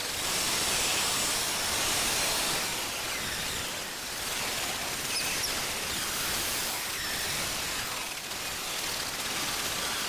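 Steady, even outdoor hiss with no distinct events, a little louder in the first few seconds.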